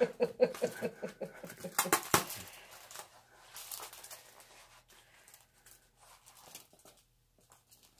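Laughter trailing off in the first second, then light taps and scrapes of a small cardboard candy box being turned over in the hands, with a few sharp clicks about two seconds in.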